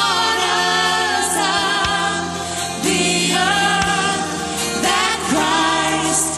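Contemporary worship music: a band with drums, and voices singing together in held, sliding notes.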